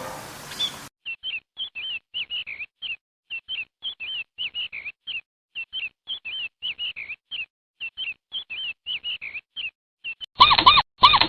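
A bird chirping: short, high notes in quick, irregular clusters. About ten seconds in, a louder squeaky animal call cuts in, repeating about twice a second.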